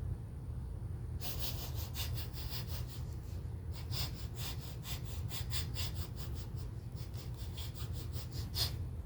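A lion sniffing in a quick series of short sniffs, about three or four a second. The sniffs start about a second in, pause briefly around three seconds, and stop just before the end, over a steady low hum.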